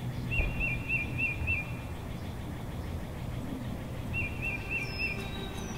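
A bird singing: a short phrase of about five quick looping notes, given twice, with a thin falling high whistle near the end, over a steady low background rumble.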